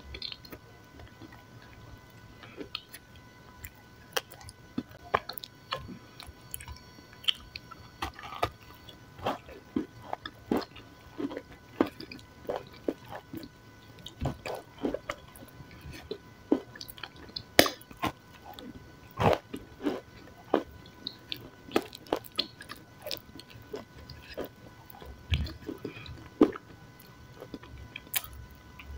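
Close-miked biting, crumbling and chewing of dry, chalky lumps: sharp, irregular crunches and crackles, about one or two a second.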